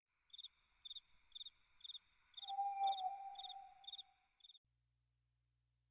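Crickets chirping in short, evenly spaced chirps about twice a second. A steady tone joins about halfway, with a brief swish near three seconds. Both stop suddenly about four and a half seconds in.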